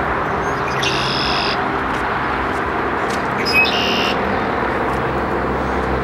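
Steady outdoor background noise with a faint low hum, broken twice by a short, high-pitched buzzing tone, about a second in and again near four seconds.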